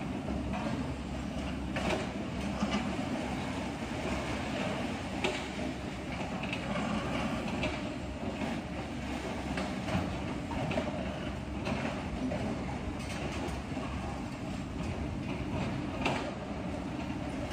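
Radio-controlled model construction machinery running: a steady mechanical whir with frequent small clicks and knocks.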